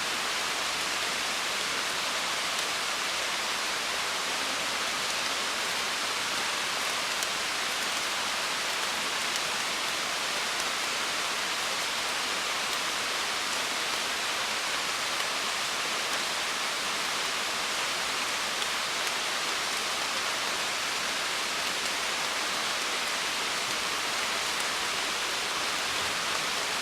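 Steady rain falling, a dense, even hiss with faint scattered drop ticks.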